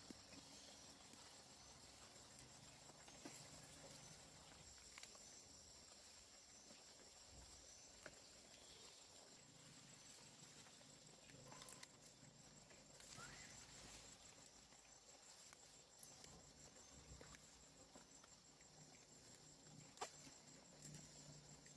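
Near silence, with a faint, steady high-pitched insect trill and a few faint scattered clicks.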